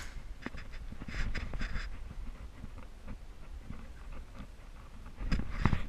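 Footsteps and rustling on rough ground, with scattered light clicks and a louder scuffle near the end.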